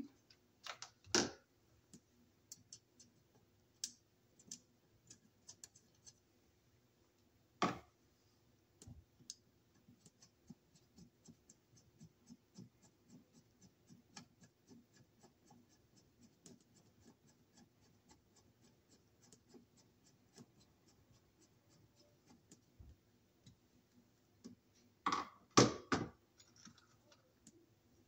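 A screwdriver driving a screw through a bell mounting plate into a metal electrical box: a long run of faint, even ticks, about three a second. There are a few louder knocks of the plate and box against each other near the start, about eight seconds in, and near the end.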